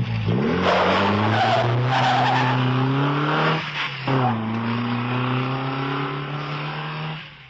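Car engine pulling hard, its pitch climbing, then a short break about four seconds in like a gear change before it runs on at a steady pitch, with a hissing tyre-like noise over it. The sound fades out near the end.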